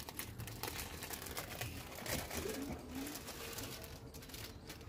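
A red and gold tinsel-trimmed cloth rustling and crinkling as it is handled and draped over a decorated palanquin shrine, in many quick, irregular crackles.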